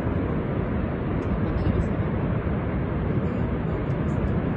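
Niagara Falls' cascading water making a steady, deep rushing noise with no breaks.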